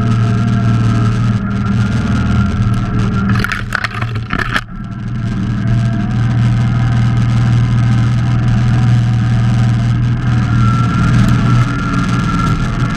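Simplicity Legacy XL garden tractor's engine running steadily, with a thin steady whine over its low hum. About four seconds in, the sound briefly dips and a few sharp clicks are heard.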